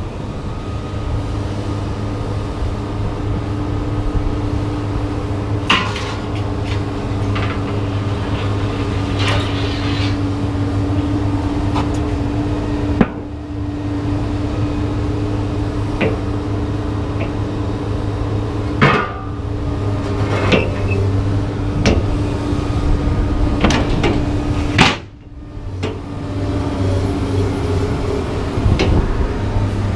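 A vehicle engine idling steadily, with scattered clanks and knocks of scrap metal being unloaded from a trailer.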